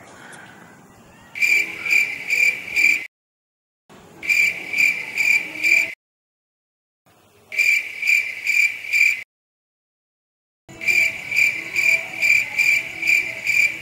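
Cricket chirping, a steady high pulsing chirp about three times a second. It starts about a second and a half in and cuts to dead silence and back three times, as an edited-in sound effect.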